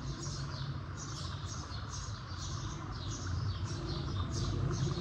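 Small birds chirping over and over, short high falling chirps about two or three a second, over a low steady rumble.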